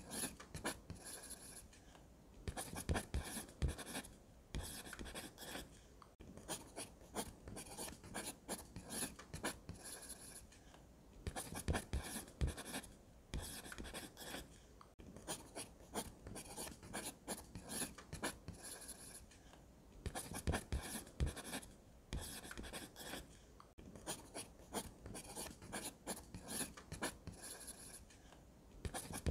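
Graphite pencil scratching on sketchbook paper as lines are drawn, some of them along a clear plastic ruler. It comes in runs of quick strokes with short pauses between.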